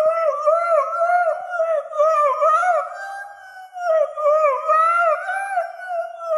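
A dog howling in a long run of quickly wavering, rising-and-falling notes, briefly quieter and steadier about three seconds in.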